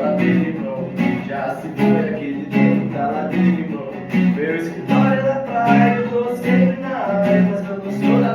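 Acoustic guitar strummed in a steady rhythm, with a man's voice singing a melody over it.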